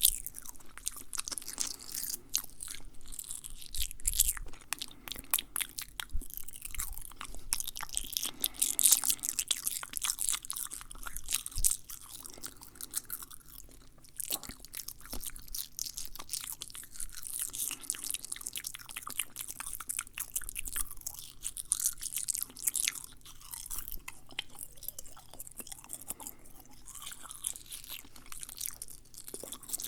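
Fast, wet mouth sounds: a dense, uneven stream of quick clicks, smacks and crackles, louder in places, with no speech.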